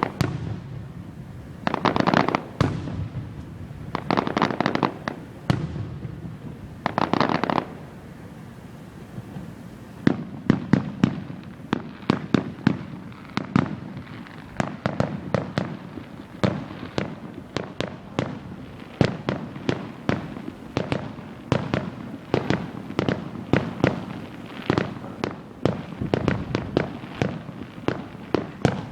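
Aerial fireworks display: a few crackling bursts a couple of seconds apart, then from about ten seconds in a rapid, unbroken barrage of sharp bangs, several a second.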